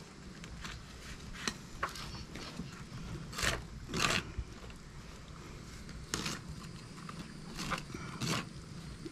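Fillet knife scraping and slicing along a gar's hard, scaly skin as the fish is skinned: about nine short scraping strokes at uneven intervals, the loudest pair about three and a half and four seconds in.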